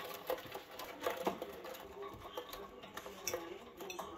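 Budgerigars chattering: a run of quick clicks with short squeaky notes in between.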